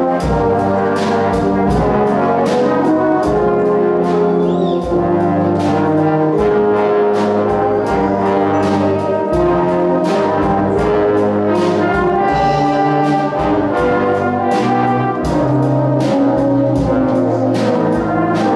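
Brass band playing a sustained, full-ensemble passage, with a drum kit keeping a steady beat of sharp strokes underneath.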